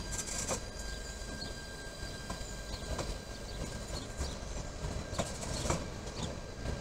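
A FEVE metre-gauge multiple-unit train, a 3600 series and a 3500 series unit coupled together, running past with a steady rumble and a few sharp clicks.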